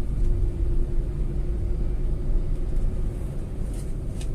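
Tata Altroz's 1.2-litre three-cylinder petrol engine and road noise heard from inside the cabin while driving in third gear with the AC off: a steady low drone with a constant hum. Freshly serviced with new oil and air filter, it runs a little smoother and quieter, as the owner finds.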